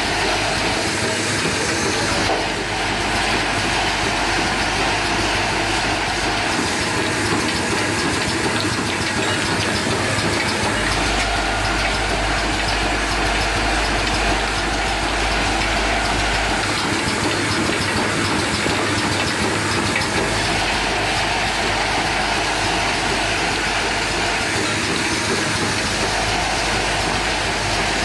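Automatic flip-top cap assembling machine running at high speed: a steady, dense mechanical clatter with a hiss.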